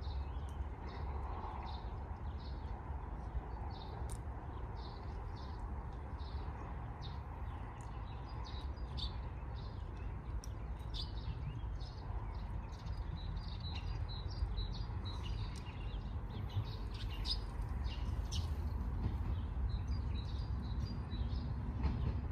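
Birds chirping in quick repeated short calls over a steady low rumble that grows slightly louder near the end.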